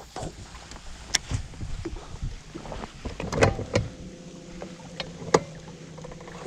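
Handling noise aboard a small fishing boat: a few sharp knocks and clicks, with a faint steady motor hum that comes in about four seconds in.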